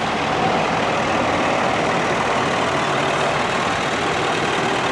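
Road traffic with heavy truck engines running steadily among passing cars.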